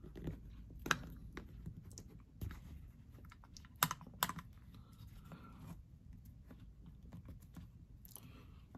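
Small clicks and taps of metal and plastic carburetor parts being handled and fitted by hand, as the lever, spring and hook are set onto the choke housing of a Solex 34 PICT carburetor. The sharpest are one click about a second in and two close together about four seconds in.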